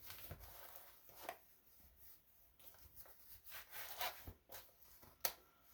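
Faint rustling of clothing and gear being handled, with scattered light clicks and one sharp click about five seconds in.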